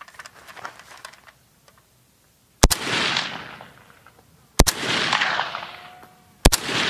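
Three single shots from a 7.62×39 mm AK-47 rifle, fired semi-auto about two seconds apart. Each crack is followed by a long echo that dies away. Faint handling clicks come before the first shot.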